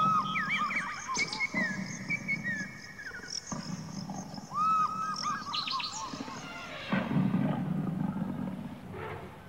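Wildlife sounds: a series of short arching bird calls, then a big cat's growl about seven seconds in.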